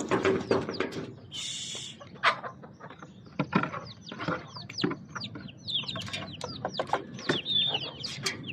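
Chickens calling, many short high calls falling in pitch and overlapping one another, with scattered knocks and a brief hissing rustle about a second and a half in.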